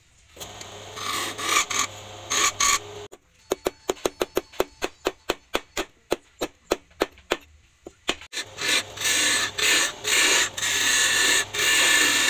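Hand file scraping back and forth in repeated strokes, broken in the middle by a run of light, sharp taps, about four a second, before the filing strokes resume.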